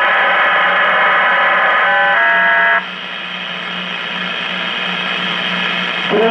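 A 1939 Fada Model 169 AA5 tube radio's speaker putting out loud static hiss over a steady low hum. About two seconds in, a few whistling tones sound for under a second, and then the static drops to a lower level.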